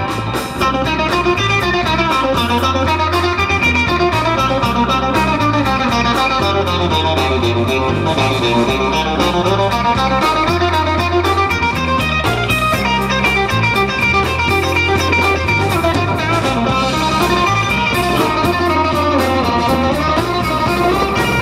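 Live band playing an instrumental passage: an amplified electric guitar takes the lead over a bass guitar line that repeats every few seconds and a drum kit.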